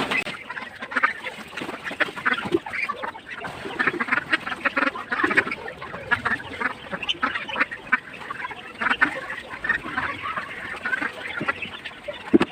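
A flock of domestic ducks quacking continuously, many short overlapping calls at once.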